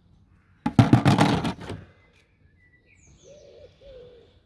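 A second-long clatter of hard plastic clicks and knocks as the Dyson DC04's filter cover is unclipped and pulled off. Birds chirp faintly after it, with a low, wavering cooing call.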